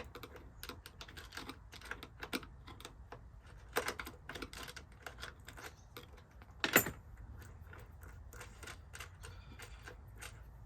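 Scattered light metallic clicks and taps of small hardware and a screwdriver being handled while nuts are started on a door hinge bolt, with one louder clack about six and a half seconds in.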